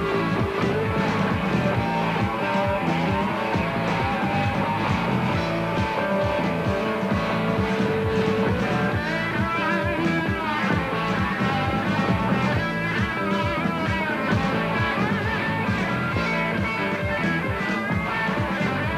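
Rock band playing live: electric guitar over bass and drums with a steady beat.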